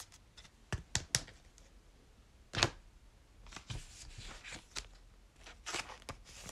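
Trading cards and foil pack wrappers being handled by hand: a few sharp clicks and taps about a second in, a louder tap near the middle, then soft rustling and crinkling.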